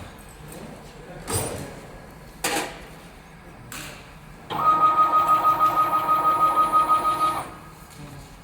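Powder filling machine dispensing a dose: a couple of short knocks, then about halfway in its motor runs for roughly three seconds with a steady whine and a fast, even pulsing, and stops suddenly.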